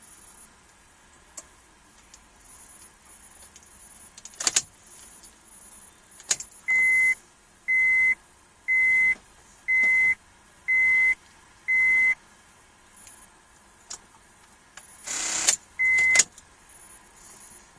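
Honda Accord warning beeper sounding six short, steady beeps about once a second, then one more a few seconds later. Sharp clicks come before the beeps, and a short louder rattle comes just before the last one.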